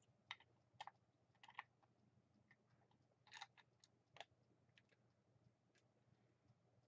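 Faint, scattered clicks and taps of small plastic toy parts being handled, a mini figure being pushed into a plastic toy jet.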